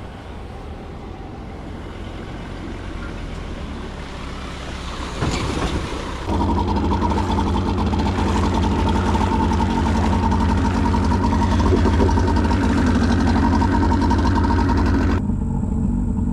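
Engines running steadily: a low vehicle hum that slowly grows louder, then, after abrupt changes about five and six seconds in, a louder steady drone of a boat's outboard motor under way.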